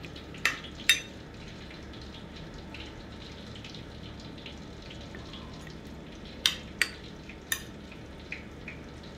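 A metal spoon stirring a dipping sauce in a bowl and clinking against the bowl: twice about half a second and a second in, then three more times between six and seven and a half seconds. Under it runs a steady, faint hiss.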